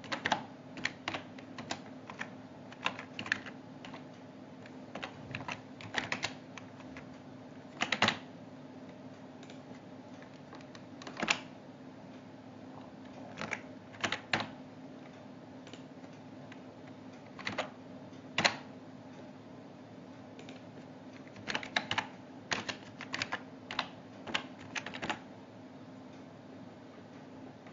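Computer keyboard typing: short bursts of keystrokes broken by pauses, with a few single sharp clicks, over a steady low hum.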